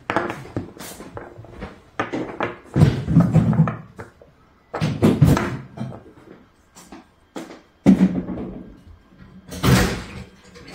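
Handling noise from the plastic cylinder of an Umarex HDR 68 revolver, turned in the hand and set on a wooden table: irregular bursts of knocks, thuds and scrapes.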